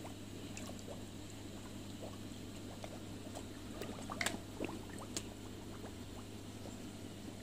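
Koi slurping and splashing at the water surface as they take floating food pellets, with a few sharper splashes around four to five seconds in, over a steady low hum.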